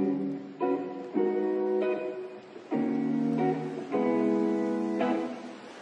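Background music: acoustic guitar chords, each strummed or plucked and left to ring for about half a second to a second.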